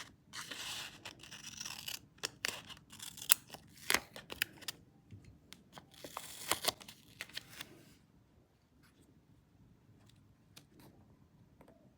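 Scissors cutting paper, with paper rustling: a busy run of snips and crinkles for the first seven seconds or so, then only a few faint taps near the end.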